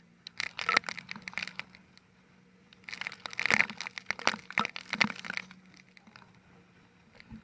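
Sea spray and splashing water hitting the camera at the nose of a towed banana boat, heard as two spells of dense crackling taps, the second longer, over a faint steady low hum.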